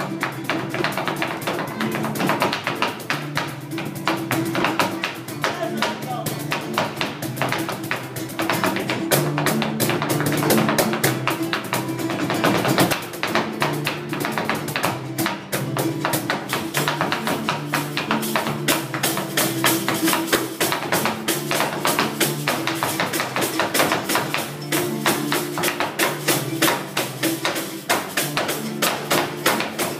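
Live acoustic band playing: fast, steadily rhythmic strummed guitars over cajón percussion, with a dense run of tapping strokes.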